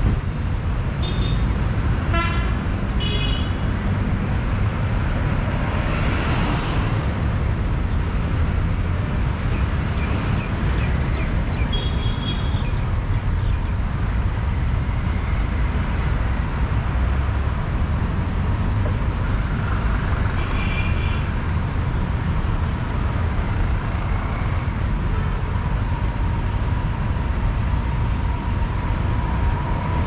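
Street traffic: a steady rumble of passing vehicles, with several short horn toots in the first few seconds and a few more later on.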